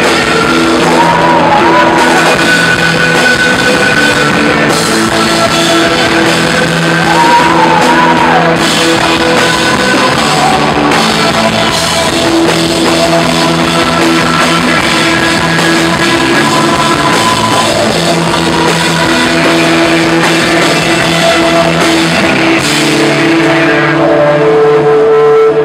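Live rock band playing loud: electric guitars, bass and drum kit, with a voice singing over them at times. The band holds a sustained chord near the end.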